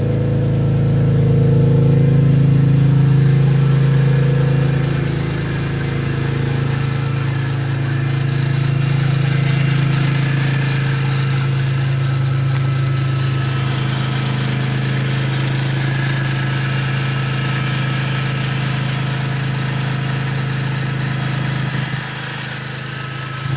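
BMW S54 3.2-litre straight-six in a 2001 E46 M3 idling steadily on one of its first runs after a full rebuild. It is a little louder for the first few seconds, then settles.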